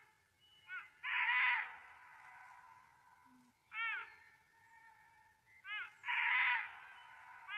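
Animal calls repeating: several short, clipped calls that rise and fall in pitch, and twice a longer, harsh, rasping call.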